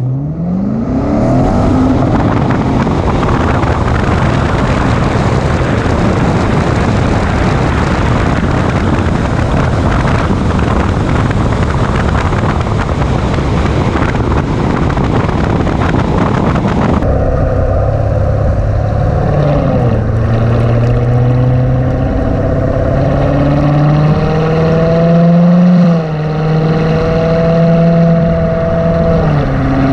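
2017 Corvette Grand Sport's 6.2-litre V8 launching hard from a standstill: engine pitch climbs quickly, then a loud rush of wind and engine noise at the hood-mounted camera while the car accelerates. After a cut, the V8's exhaust note heard close at the quad centre tips while driving, its pitch rising and falling several times with a sharp drop near the end.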